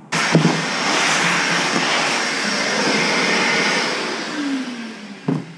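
Wet/dry shop vacuum switched on and running steadily as it sucks up metal filings, then switched off, its motor winding down with a falling hum near the end.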